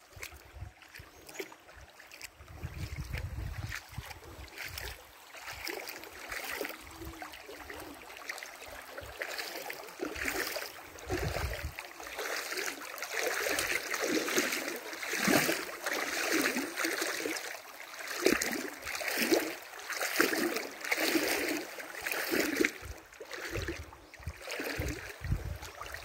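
A person wading through a shallow, pebbly river, the water splashing and swishing about once a second, louder in the second half.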